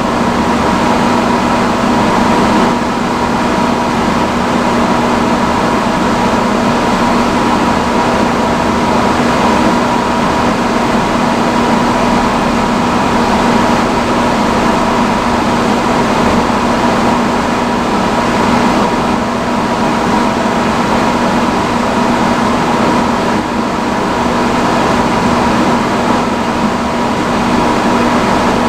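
Vintage salon chair hood hair dryer running on its highest setting: a steady, loud blowing rush with a constant high whine and a lower hum.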